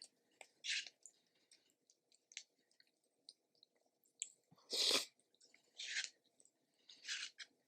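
Close-miked chewing of crisp salad greens: a string of separate wet, crunchy mouth sounds with short pauses between, the loudest and fullest about five seconds in.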